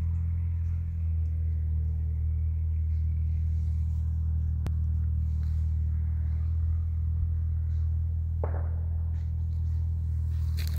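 A steady low rumble throughout, with a single sharp click about halfway and crackling, crunching noise starting near the end.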